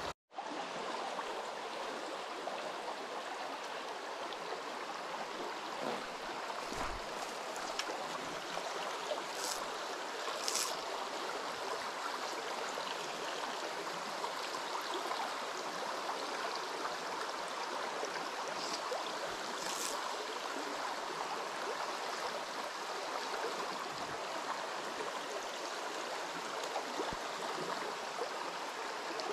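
Shallow, rocky pocket-water stream running over stones and through riffles: a steady rush of moving water. A few brief faint ticks sound twice, around a third and two-thirds of the way through.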